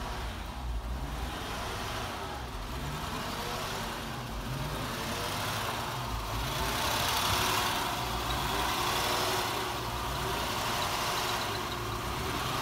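A 1973 Mercedes 450SLC's 4.5-litre V8 idling, still cold after a fresh start on a borrowed battery. It idles a little unevenly, a roughness that clears once it warms up. It grows louder about halfway through as the open engine bay is approached.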